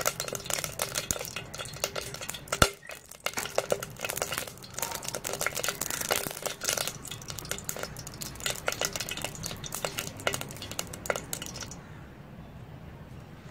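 Cooking oil crackling and popping as it heats in a hot enamel pot, a dense run of small pops, with one sharp knock about two and a half seconds in. The crackling cuts off suddenly near the end.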